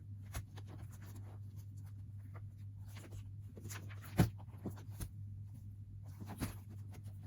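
Small clicks and light rustles of objects being handled, with a louder knock about four seconds in and another just after six seconds, over a steady low hum.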